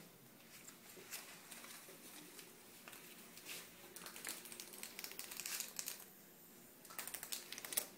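Quick, light clicks and scratches in irregular clusters, busiest in the middle and near the end: a small dog's claws and paws on a tiled floor as it scrabbles after a cockroach.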